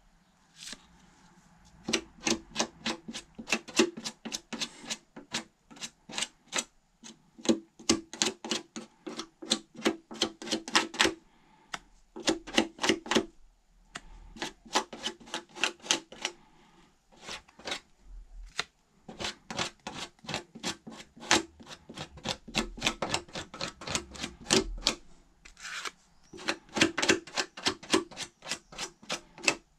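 Fast, rhythmic scraping strokes by hand on car bodywork during a body filler repair, about six or seven a second, in bursts of a few seconds with short pauses.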